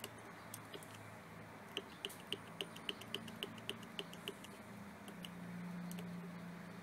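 A quick run of about a dozen short, even clicks, about four a second, from the dashboard menu controls as the driver display is scrolled. Under them is the low, steady hum of the Scania K280 bus's diesel engine idling, swelling slightly near the end.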